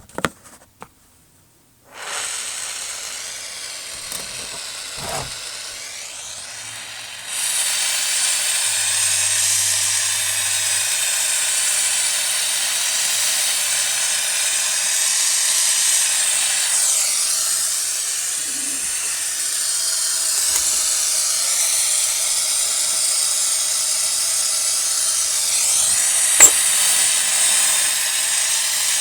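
Gas flame hissing steadily while copper is soldered. It starts about two seconds in and becomes louder around seven seconds in, with a single sharp click near the end.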